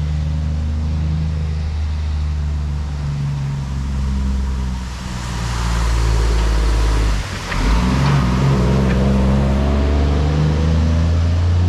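Motor vehicle engine running steadily, then, after a brief dip about seven seconds in, accelerating with its pitch climbing.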